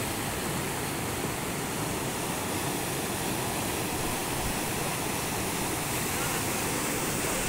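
Floodwater rushing through a broken earthen embankment: a steady, unbroken sound of fast turbulent water.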